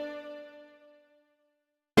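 Synthesized MIDI phone ringtone on a ZTE r221 soundfont: its last held notes die away over about a second into silence, and the next ringtone starts abruptly right at the end.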